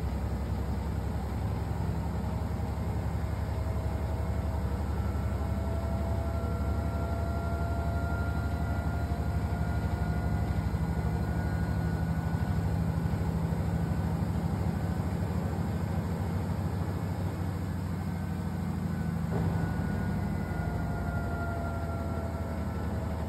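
Samsung WW85T504DTT 8.5 kg front-load washing machine with a Digital Inverter motor on its spin cycle: a steady low hum with a faint motor whine that drifts slowly in pitch.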